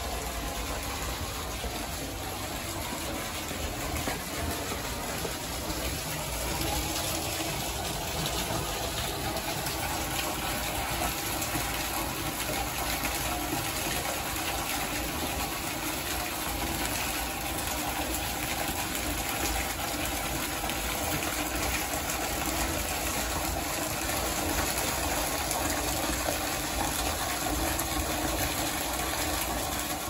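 A small shrine waterfall: a thin stream of water pouring from a wooden spout and splashing onto rocks and into the pool below. It is a steady rushing splash that grows a little louder a few seconds in.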